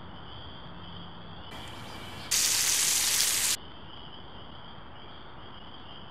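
Insects chirping steadily in the background. About two seconds in, a loud burst of steady hiss starts, runs for just over a second and cuts off sharply.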